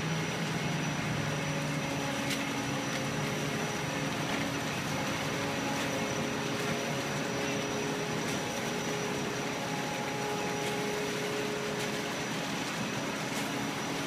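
Concrete mixer truck's diesel engine running steadily, a constant hum with no change in speed.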